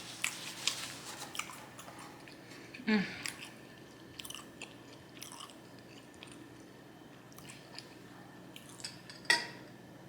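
A person chewing and biting food close to the microphone, with wet mouth clicks and smacks scattered through. A louder mouth sound about three seconds in, and a sharp click near the end.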